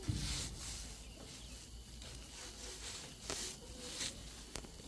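Black plastic shade netting rustling and swishing in short bursts as it is pulled and smoothed over a frame, with a sharp click near the end.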